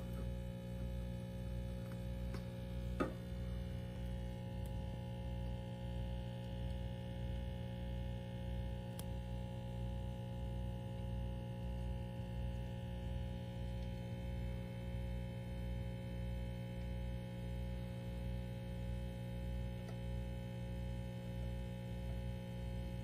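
Steady electrical hum of aquarium equipment, with a low throb pulsing a little more than once a second. A single short tap sounds about three seconds in.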